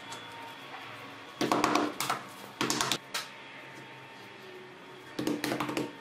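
Rubber mallet knocking split-face stone tiles into adhesive on a wall, in short bursts of quick knocks. The bursts come about a second and a half in, again around three seconds, and near the end.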